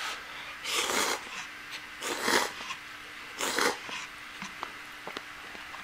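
A person slurping instant buckwheat soba noodles from a cup: three loud slurps, about a second and a half apart, followed by faint small clicks.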